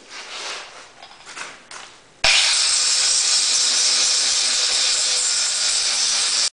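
Small electric angle grinder grinding a torch-cut steel wrench blank down to width. After about two seconds of quieter, uneven sound, the grinding starts suddenly and holds steady, then cuts off abruptly at the end.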